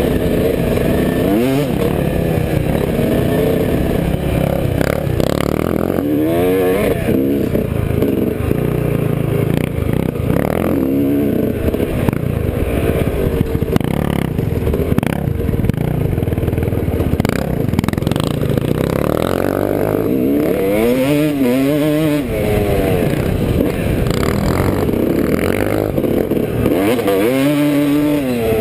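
Dirt bike engine revving up and down repeatedly, its pitch rising and falling in quick sweeps, over a steady low wind rumble on the helmet-mounted microphone.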